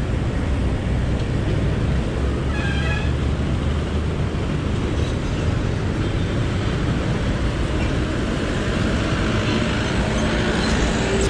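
Road traffic noise with low wind rumble on the microphone, and a brief high-pitched squeal about two and a half seconds in.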